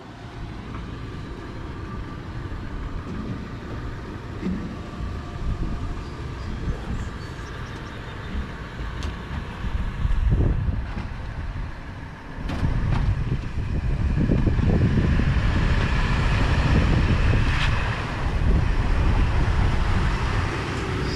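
An engine running steadily with a low rumble, louder from about halfway through.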